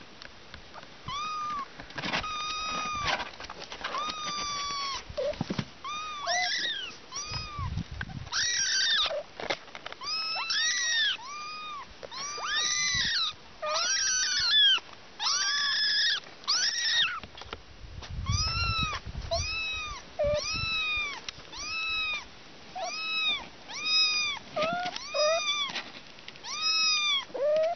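Young kittens meowing over and over, short high-pitched calls that rise and fall, about one a second, several kittens overlapping at times. Two brief low rumbles sound beneath the calls.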